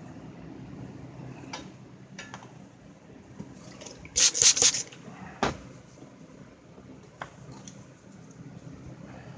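A burst of sharp clattering knocks about four seconds in, then a single knock a second later, with a few fainter clicks around them over a steady low hum.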